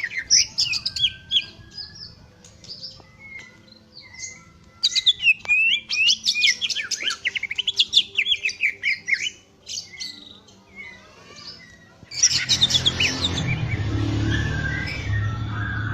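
Cucak ijo (green leafbird) in full song: a fast, varied warble of quick sweeping whistled notes, in several bursts with short pauses between. About three-quarters of the way through, a steady low hum and hiss come in underneath the song.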